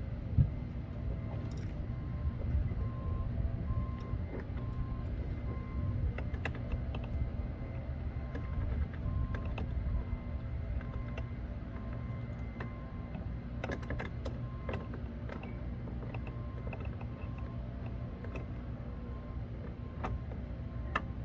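Scattered plastic clicks and small knocks from hands working at a Nissan Maxima's rear door panel and handle, over a steady low hum. A car's warning chime beeps evenly, a little faster than once a second.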